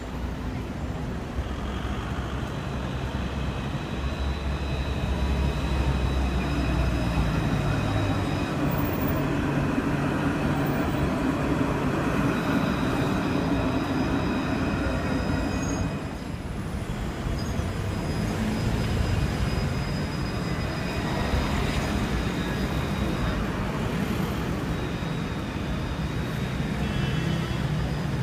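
Alstom Citadis electric tram running along its tracks. A low rumble of the wheels and a high whine from the electric drive grow louder as it comes close and passes. After a break about halfway through, a second tram is heard approaching, with street traffic behind it.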